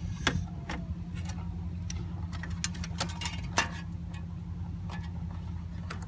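Scattered light clicks and ticks as plastic zip ties are threaded through a car's plastic honeycomb grille, over the steady low hum of an idling engine.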